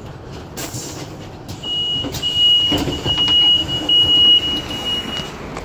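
A high, steady electronic beep sounds for nearly four seconds, starting under two seconds in, over the running rumble inside a trolleybus, with a knock near the middle.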